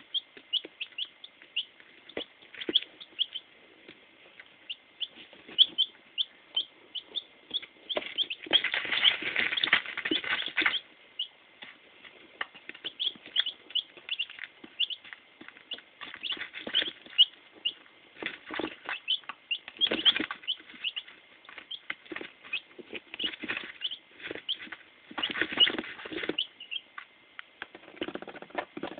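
Newly hatched chicks (Araucana and Buff Orpington) peeping: many short, high peeps repeating throughout. Several bursts of rustling noise come in between, the longest about eight to eleven seconds in.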